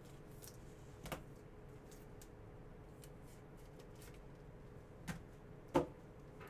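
Trading card being handled and slid into a clear plastic holder: soft rustling of card and plastic, with a few short clicks and taps, the loudest near the end.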